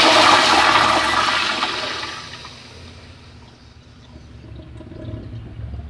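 Toilet in a public restroom flushing: a loud rush of water down the bowl that fades away after about two seconds, followed by a softer swell of water near the end as the bowl refills.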